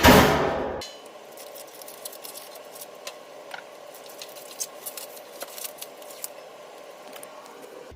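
Music cuts off abruptly within the first second. After that come scattered small clicks and light taps over a faint steady hum.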